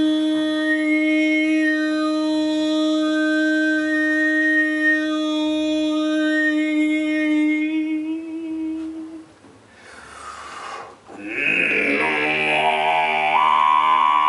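Overtone singing: one long held vocal drone with whistling overtones gliding up and down above it, ending about nine seconds in. After a short breathy pause, a didgeridoo drone starts around eleven and a half seconds in.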